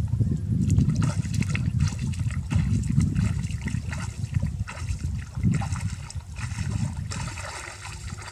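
A person wading through shallow muddy water, legs sloshing and splashing with each stride.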